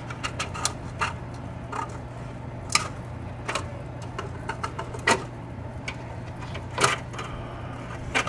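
Plastic containers and tank lids being handled: scattered light clicks and knocks, three of them louder and a couple of seconds apart, over a steady low hum.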